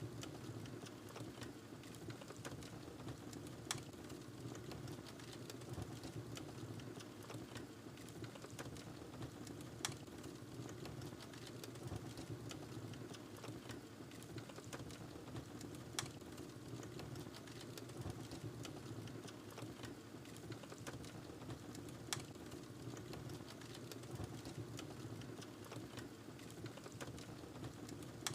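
Wood fire burning in a fireplace: a steady low rumble of flames with constant small crackles, and a sharper pop about every six seconds.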